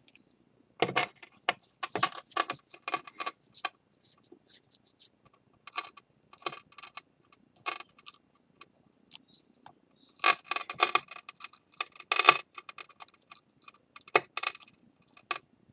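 Broken pieces of a ceramic bowl clinking and clicking against each other in quick bursts as they are handled and fitted together along their break lines.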